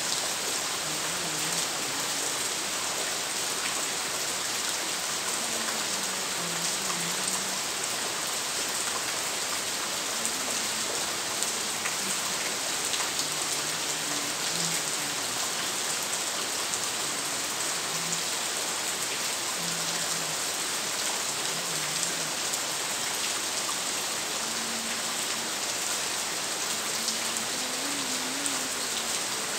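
Steady rain falling: an even hiss with a fine patter of drops.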